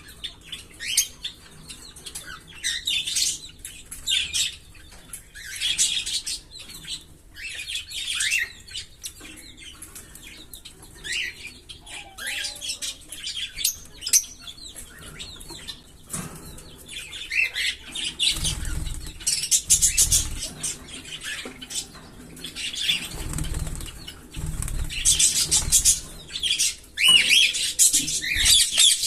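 A pair of green Fischer's lovebirds chirping with short, high, sharp calls, broken up in the second half by rapid trills and bouts of wing flapping.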